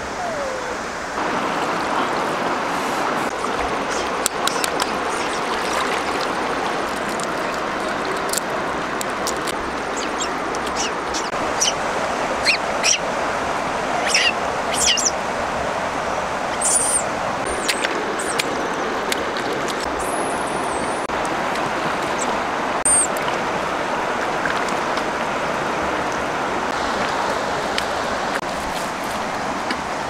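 Steady rush of flowing river water, with short high chirps and squeaks scattered through the middle stretch.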